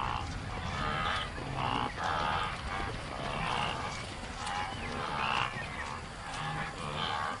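Herd of wildebeest calling: a string of repeated grunting calls from several animals, coming about once a second and sometimes overlapping.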